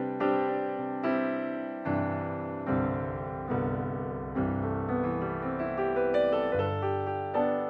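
Gentle background piano music, a new note or chord struck roughly every second and left to fade.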